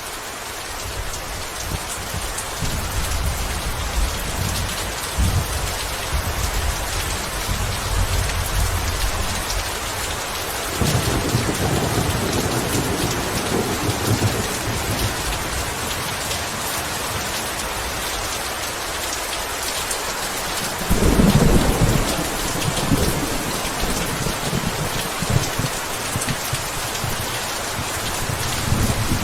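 Steady heavy rain with thunder rolling through it: low rumbling in the first ten seconds, a louder roll of thunder about eleven seconds in, and the loudest peal about twenty-one seconds in.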